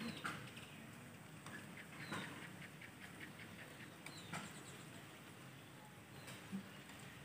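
Mango skin being peeled against a boti blade: soft scraping and slicing strokes, a few sharper ones spaced about two seconds apart, with faint quick ticking between them.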